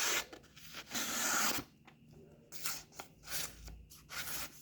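Victorinox Hunter Pro Alox knife blade slicing through sheets of white paper, a dry papery hiss with each stroke: one longer cut about a second in, then several short ones. The edge still cuts the paper cleanly, not having lost much sharpness.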